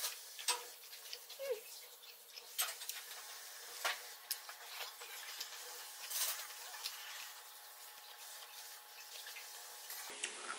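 Close-miked eating sounds: metal chopsticks clicking against a plate and quiet chewing of stir-fried cabbage and sundae, with a few short sharp clicks standing out.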